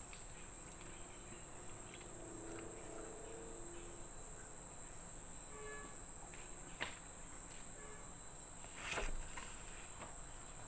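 Insects trilling steadily at one high pitch, with a few faint clicks.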